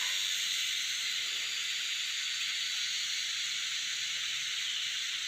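Steady, high-pitched insect chorus that holds unbroken throughout.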